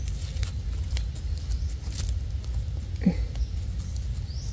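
Scattered small clicks and crackles of forest-floor litter being handled, over a steady low rumble on the microphone, with a brief voice sound about three seconds in.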